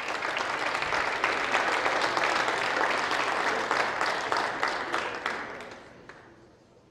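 A roomful of people applauding, dense clapping that dies away over the last second or so.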